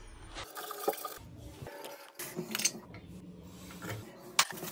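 Hands handling sink drain fittings: rubbing and scraping with a few sharp clicks, the loudest near the end. The sound changes abruptly several times.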